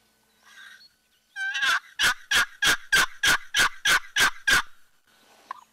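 A hand-held turkey call worked in a run of about nine evenly spaced yelps, roughly three a second, imitating a hen turkey to draw a gobble.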